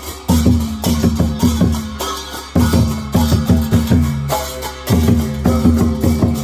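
Drum-heavy music with a steady beat over bass notes, its phrase starting over about every two and a half seconds.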